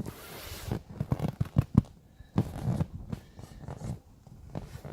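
Irregular rustling with soft knocks and thumps, like handling noise from moving around and touching things.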